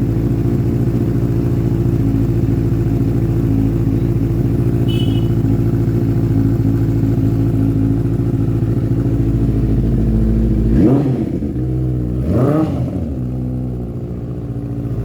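Benelli GT motorcycle with an SC-Project aftermarket exhaust idling steadily, then revved with two quick throttle blips about eleven and twelve and a half seconds in, the pitch rising and dropping back to idle each time.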